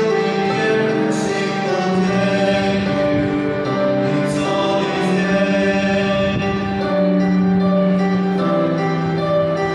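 Mixed vocal quartet of two men and two women singing a gospel song in harmony, with long held notes.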